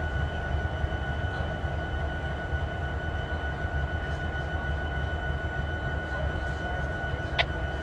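Union Pacific Big Boy No. 4014 steam locomotive and a diesel locomotive rolling slowly past: a steady low rumble with a steady high-pitched whine over it, and a single sharp click near the end.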